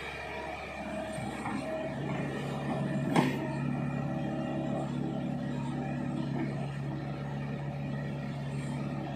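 Hitachi Zaxis 110 excavator's diesel engine running steadily as the machine swings its boom round, with a single sharp knock about three seconds in.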